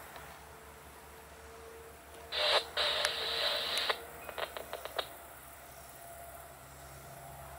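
Scanner radio on the railroad channel breaking squelch with a burst of static lasting about a second and a half, a couple of seconds in, then a quick string of short crackling clicks, with no voice coming through.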